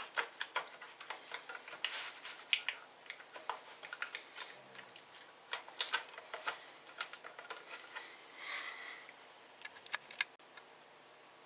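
Irregular light clicks and taps of small hard laptop parts and tools being handled, with a soft rustle about two thirds of the way through.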